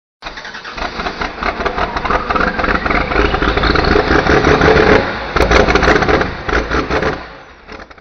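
A loud engine revving up, its pitch climbing over the first few seconds, then running hard before fading out near the end.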